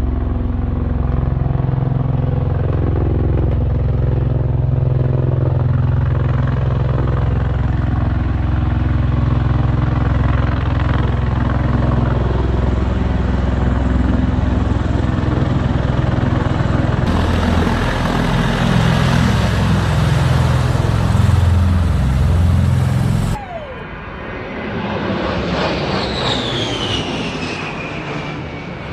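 Heavy engine noise running loud and steady, changing character about two-thirds of the way through and cutting off abruptly. Then an aircraft turbine passes by, its whine falling in pitch.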